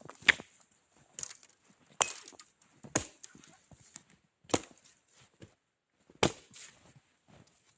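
Wood being chopped: six sharp blows at uneven intervals, with some quieter rustling between them.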